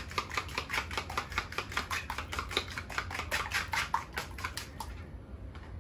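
Eggs and milk being whisked into an egg wash with a metal utensil in a glass bowl: rapid clicking of the utensil against the bowl, about five or six strokes a second, stopping about five seconds in.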